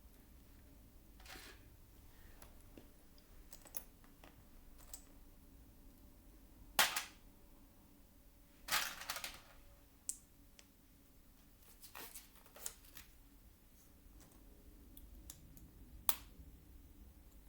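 Plastic Lego pieces being handled and pressed together: scattered sharp clicks and small rattles, the loudest about seven seconds in and a quick cluster around nine seconds.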